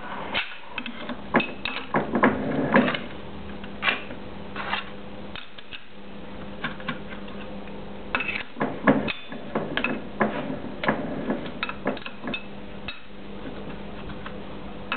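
Wrench clinking on the steel nuts of a lathe chuck's mounting flange as they are tightened down onto the spindle: irregular metal clicks and knocks, with a steady low hum underneath.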